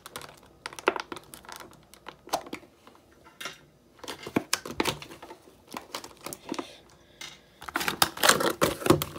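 Thin clear plastic bag crinkling and crackling in the hands as an action figure is worked out of it, in irregular bursts that grow busier and louder near the end as it is pulled free.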